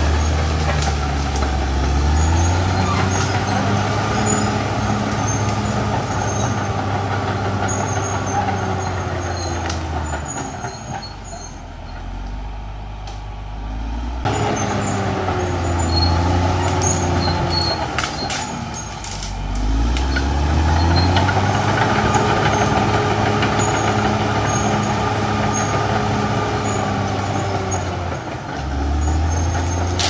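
Caterpillar D6R XL bulldozer's diesel engine working under load as it pushes soil and brush, its pitch rising and falling. About eleven seconds in it drops to a lower, quieter note for a few seconds, then climbs back up again.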